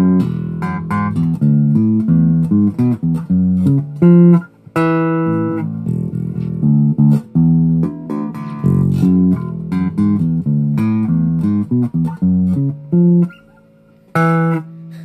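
Electric bass guitar, a Chinese Ibanez-style copy, played fingerstyle through its neck pickup: a run of separate plucked notes, a brief pause about thirteen seconds in, then one more note near the end.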